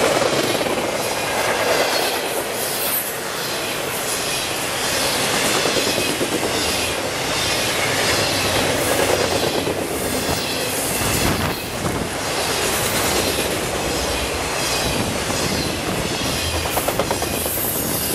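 Freight train cars rolling past, wheels clacking rhythmically over the rail joints, with some high wheel squeal.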